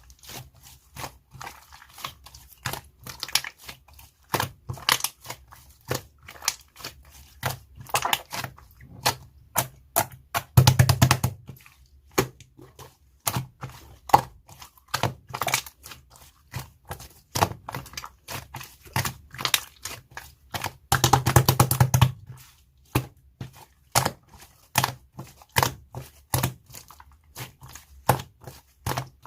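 Slime being played with by hand: a continuous series of sharp, sticky clicks and pops, with two denser crackling runs about 11 seconds and 21 seconds in.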